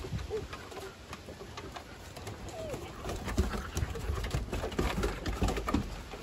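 Shepherd-husky mix puppies and dogs tussling over a rope toy on a wooden deck: short low vocal sounds from the dogs, with claws clicking and scuffing on the boards, busier in the second half.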